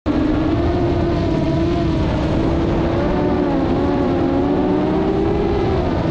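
A 7-inch FPV quadcopter's brushless motors (Racerstar 2508) and props whining steadily at cruising throttle, the pitch drifting slightly up and down, over a heavy rush of wind and prop wash.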